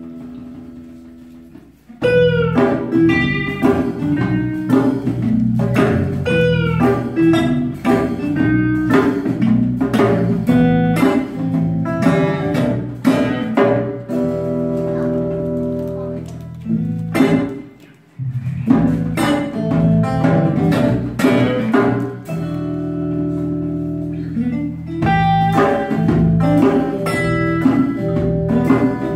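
Small acoustic band playing live: acoustic guitars over a bass guitar. A held chord fades for the first couple of seconds before the full band comes in, and the music drops out briefly about eighteen seconds in before picking up again.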